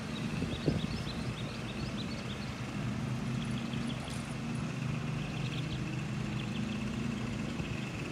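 Steady low hum of an idling engine, with quick chirps of birds repeating in runs over the top.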